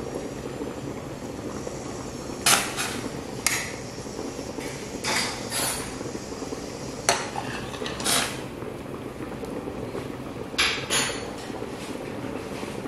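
A stainless steel pot boiling on a glass-top stove, a steady bubbling rumble, with about eight short, sharp clinks and knocks of kitchenware scattered through, some in quick pairs.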